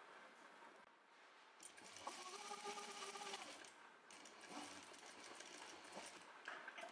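JUKI industrial sewing machine stitching in two short runs, the needle and motor giving a steady whine, the first run about two seconds long and the second softer; a sharp click near the end.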